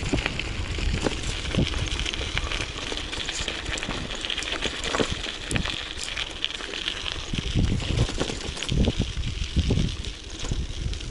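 Bicycle tyres crunching over a gravel dirt road, with scattered clicks and knocks from the bike rattling over stones. Gusts of wind rumble on the microphone of the action camera strapped to the rider's belly.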